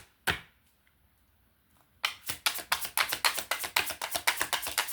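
Tarot cards being shuffled by hand, a quick run of crisp card taps and flicks. It stops just after the start, pauses for about two seconds, then starts again at about six taps a second.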